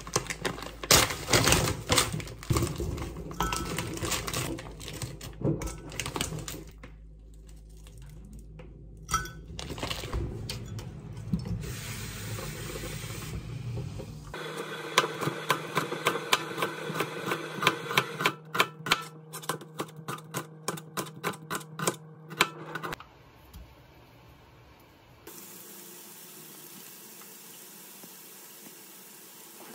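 Kitchen prep sounds: clinks and knocks of things set down and handled on a counter and plastic cutting board, with a run of quick, even knocks in the middle and a steady soft hiss near the end.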